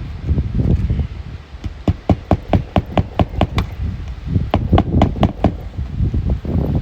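Quick runs of sharp clicks and taps from work on asphalt roof shingles, about five a second, in two bursts, over low wind rumble on the microphone.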